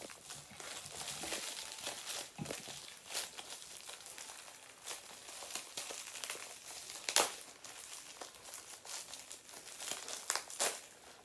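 Crinkly packaging rustling and crackling as a tightly packed vinyl figure is worked out of it, with a few sharp crackles, the loudest about seven seconds in and two more near the end.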